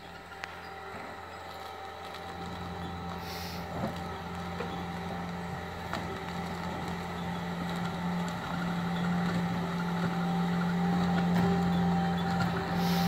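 A truck engine running with a steady low hum that grows steadily louder.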